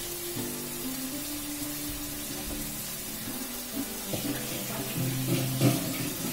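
Kitchen tap running steadily into the sink, with a couple of light clinks about four and five and a half seconds in.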